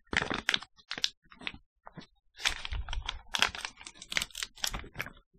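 Clear plastic treat bag crinkling as it is handled, in short irregular crackles.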